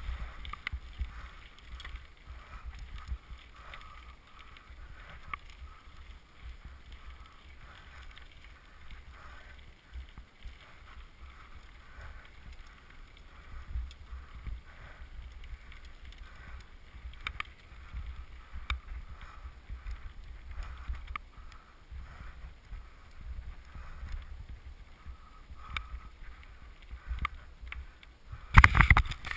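Trek Top Fuel full-suspension mountain bike riding fast down a rough dirt forest trail: a low rumble with frequent rattles and knocks from the bike jolting over roots and stones. A loud clatter near the end.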